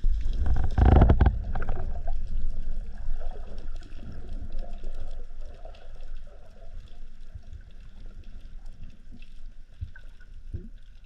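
Water sounds during a spearfishing dive, heard through the camera: a loud rush of water and bubbling in the first two seconds, then a quieter gurgling and rustling with scattered small ticks.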